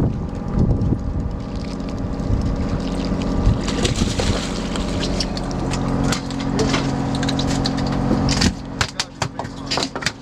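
Fishing boat's engine running steadily with a low hum. About eight and a half seconds in the hum stops and a quick run of sharp clicks and knocks follows.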